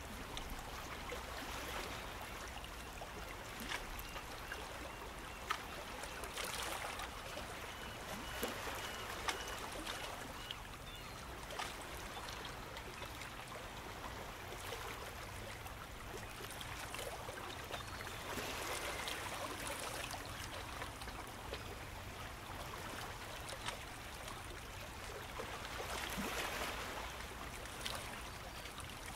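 Running water: a steady wash dotted with small crackling splashes, swelling and easing every several seconds.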